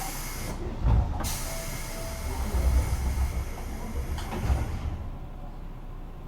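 Compressed air hissing from a stopped JR West 201 series electric train: a short burst at the start, then a longer hiss of a few seconds, with low thumps about a second in, in the middle and near the end of the hiss.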